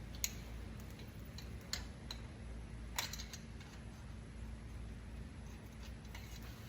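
A few sharp metal clicks and taps from hand tools being worked on the car's underside, spaced a second or more apart, over a low steady hum.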